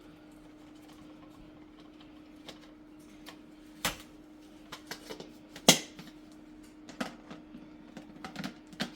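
Scattered clicks and knocks of plastic vacuum parts being handled as the dust compartment is pulled apart and hair is pulled out, the loudest click a little over halfway through. A faint steady hum runs underneath.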